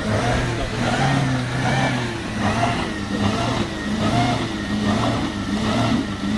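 Off-road 4x4's engine running under load, swelling and easing in a repeated rise and fall about once a second.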